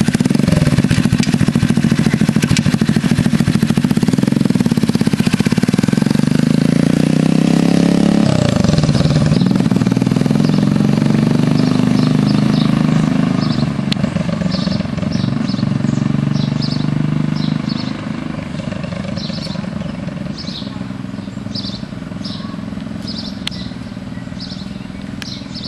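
Small 50 cc chopper minibike engine running as the bike rides off, its pitch rising and falling with the throttle. It grows fainter about two-thirds of the way through as the bike moves away.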